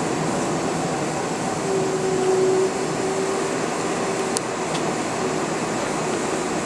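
Cabin noise inside a Boeing 747 on the ground just after landing: a steady rush of cabin air and engine noise. A faint humming tone comes and goes from about two seconds in, and there are two brief clicks about four and a half seconds in.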